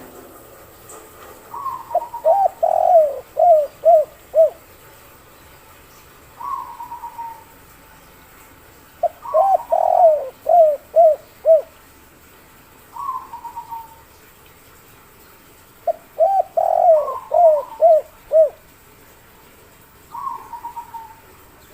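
Spotted dove cooing in the 'kuk 3' song pattern. There are three phrases, each a short higher rolling note followed by a run of about five deep coos, with lone rolling notes between the phrases.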